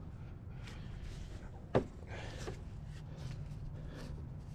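Handling noise under a car's hood: soft rustling and scraping as the AC canister and its lines are moved by hand, with one sharp knock a little under two seconds in.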